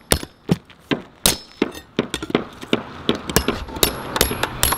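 Hammer striking a steel flat bar against a steel roof anchor plate, driving the bar under the nail heads to pry them loose: a steady run of sharp metallic clangs, about three a second, some with a thin ringing.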